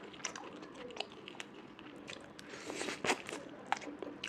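A person chewing and biting food close to the microphone, with scattered wet clicks and crunches; the loudest crunch comes about three seconds in.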